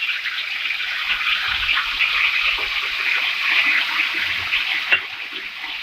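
Ginger-garlic paste sizzling as it fries in hot oil in a pan, a steady crackling hiss, with a sharp click about five seconds in.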